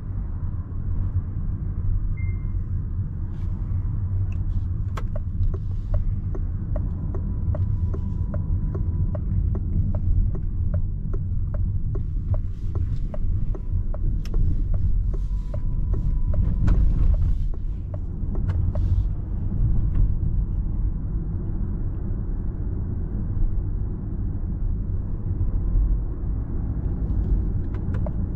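Low, steady road and tyre rumble inside the cabin of a moving 2024 Citroën C5 X plug-in hybrid. From about five seconds in until about seventeen seconds, the turn signal ticks at an even rate.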